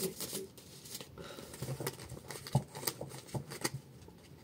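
A large deck of oracle cards being shuffled hand over hand, the cards clicking and slapping against each other in quick, irregular snaps.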